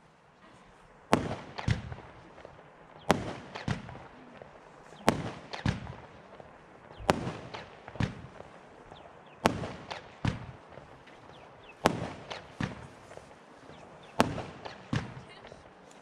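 Consumer fireworks battery firing single shots about every two seconds. Each sharp launch report is followed within about half a second by one or two smaller pops as the small shell bursts overhead.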